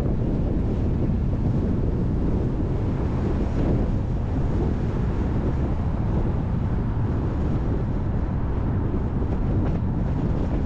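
Steady low rumble of a moving car on the road, with wind buffeting the microphone.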